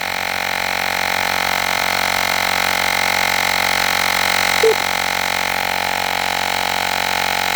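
Olgeo M7 portable 12-volt-style tire inflator running steadily, its small motor and piston pump humming as it pumps air into a flat car tire, which is still low at around 16 psi. A brief short chirp sounds about halfway through.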